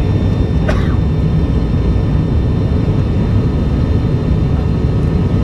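Steady drone of a turboprop airliner's engine and propeller, heard inside the cabin beside the wing, during the low final approach to landing. A short falling squeak comes about a second in.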